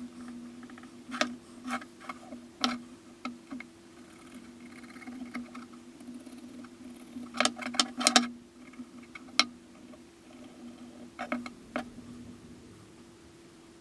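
Pencil scratching over a wooden block as a spoon outline is drawn, broken by several sharp knocks of the block and pencil against the workbench, with a cluster of them about halfway through. A steady low hum runs underneath.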